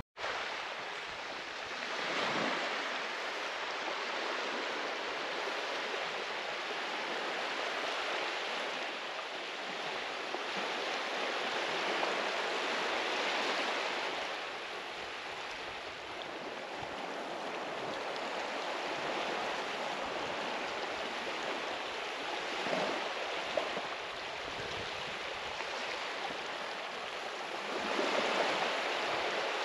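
Small waves washing onto a sandy shore, a steady hiss that swells and eases every few seconds.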